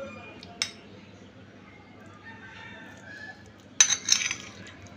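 Kitchen utensils clinking against dishes: a single sharp clink about half a second in, then a loud burst of clattering just before four seconds.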